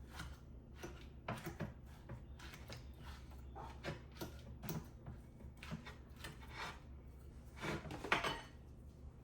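Kitchen handling noises: scattered soft knocks and clicks of a bowl and utensils being handled while a meatball mixture is prepared, with a louder clatter about eight seconds in.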